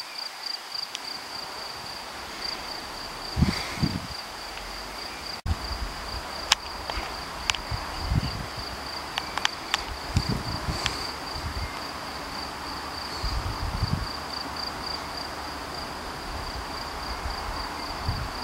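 Cricket trilling steadily in a high, finely pulsed tone, with low gusts of wind buffeting the microphone and a few sharp clicks.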